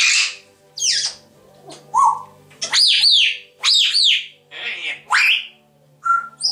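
African grey parrots calling: a run of short whistles and squawks about a second apart, several sweeping sharply downward in pitch, with a short steady whistle near the end.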